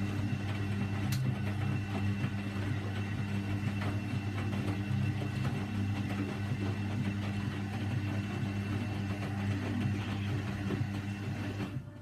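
Hoover Electron A3254 front-loading washing machine running its wash tumble on a 60 °C cotton cycle: a steady motor hum as the drum turns the wet laundry. The hum drops away just before the end.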